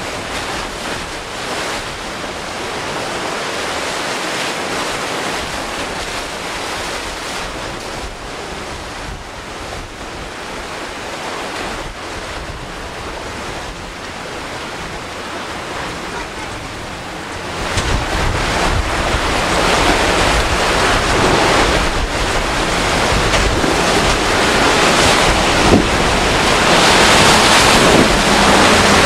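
Surf and choppy ocean water with wind buffeting the microphone; about two-thirds of the way in the wind gets much stronger, adding a heavy low rumble.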